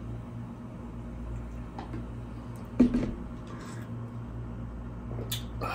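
A single sharp knock about three seconds in and a few light clicks near the end, over a steady low hum.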